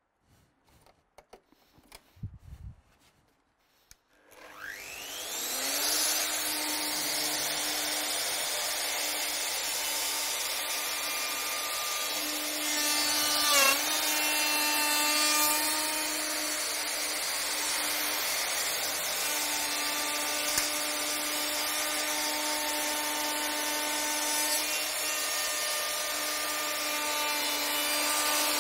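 A few faint clicks. About four seconds in, a Festool OF 2200 plunge router spins up with a rising whine, then runs steadily as its cutter mills a dovetail groove into a softwood beam. Its pitch wavers and it grows briefly louder about thirteen seconds in as the cutter takes the load.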